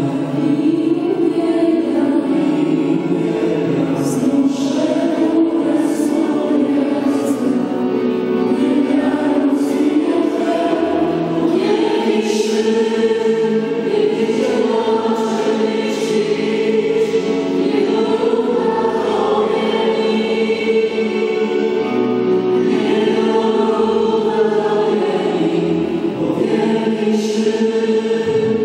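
A choir singing slow devotional music, long held chords that change every few seconds.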